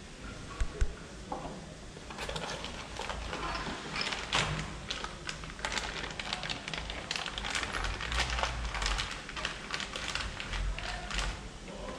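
A couple of sharp knocks, then a long run of irregular clicking and crinkling as a plastic-wrapped part is handled and unwrapped at the workbench.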